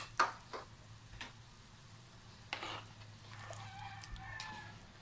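Metal spatula stirring boiling broth with vegetables in a wok: a few sharp clinks and scrapes against the pan, most in the first second and one more about two and a half seconds in.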